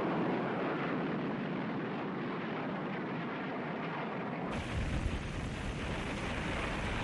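Dubbed combat sound effects of a downed aircraft and fire: a steady rushing noise that, about four and a half seconds in, gives way to a deeper rumble with more hiss.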